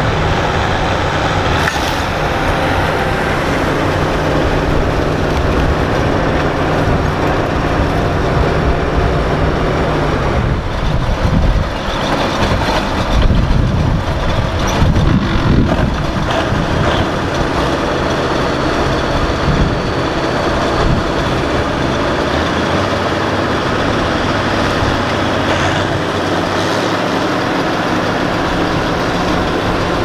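Engines of a 1977 Gleaner M2 combine and an Allis-Chalmers tractor running under heavy load as the tractor pulls the stuck combine out of the mud. Steady for the first ten seconds, louder and uneven for several seconds in the middle, then steady again.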